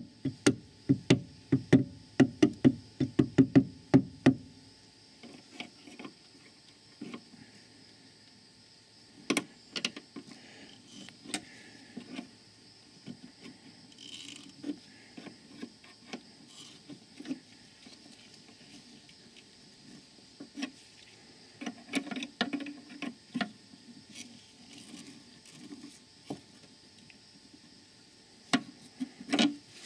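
Hammer tapping the U-shaped retaining clip into a rear brake hose bracket: a quick run of sharp metal taps, about three a second, that stops about four seconds in. Scattered clicks and knocks from handling the hose fitting follow.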